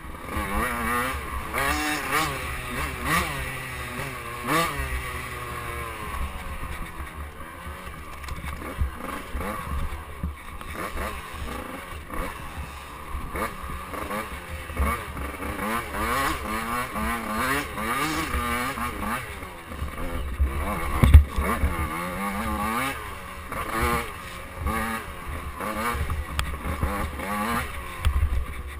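KTM 85cc two-stroke dirt bike engine revving up and down through the gears on a rough trail ride, the pitch rising and dropping again and again. A single loud knock stands out about three-quarters of the way through.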